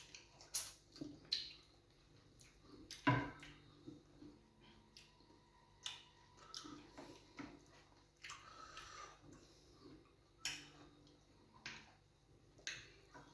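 Close-up eating sounds of fufu with groundnut soup: wet mouth smacks, squelches and chewing, heard as scattered short clicks, the loudest about three seconds in.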